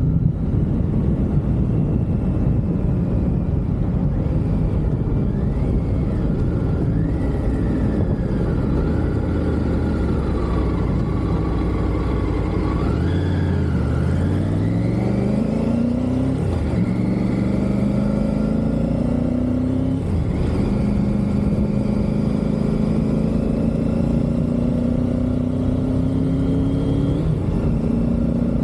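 Triumph Tiger motorcycle engine running on the move. About halfway through the revs drop, then climb again, and the pitch falls back at each of three upshifts as the bike pulls away through the gears.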